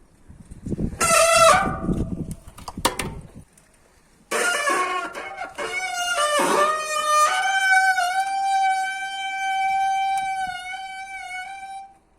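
Bicycle brakes squealing loudly under braking: a short squeal over a low rumble about a second in, then from about four seconds in a long squeal that shifts in pitch before holding one steady high note for several seconds.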